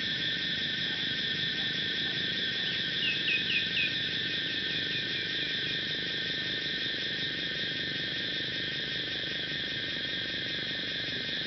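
Steady, high-pitched chorus of insects at dusk, with a string of about eight short falling chirps a few seconds in that slow and fade.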